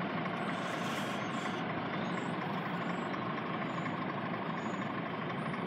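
Class 170 Turbostar diesel multiple unit approaching from a distance: a steady, even engine and rail noise that holds level, with a faint steady high tone running through it.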